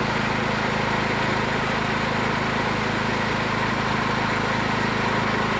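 Small gasoline engine running steadily at constant speed on a dynamometer test bench.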